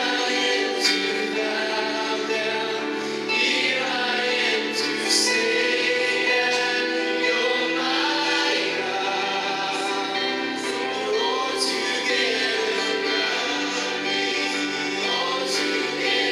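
Gospel worship song: a woman singing into a microphone with musical accompaniment, other voices blending in like a choir.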